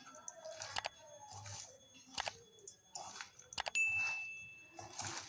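Shredded raw cabbage being tossed and squeezed by hand in a steel mixing bowl, giving short crisp rustles about once a second. Nearly four seconds in come a quick pair of clicks and then a single bell-like ding, held for about a second: the sound effect of a subscribe-button and bell animation.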